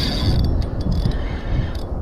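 Fishing reel winding in line on a hooked fish, a mechanical whirring with fine clicks over a low rumble of wind and water.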